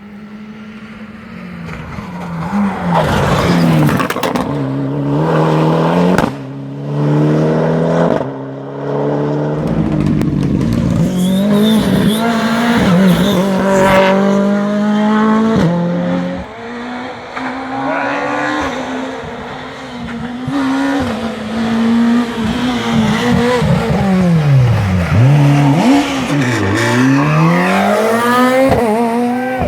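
Rally car engines at full throttle, revving up through the gears with quick shifts. Near the end the pitch twice drops low and climbs again, as a car slows for a corner and accelerates away.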